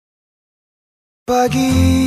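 Silence for just over a second, then background music starts suddenly with a held chord.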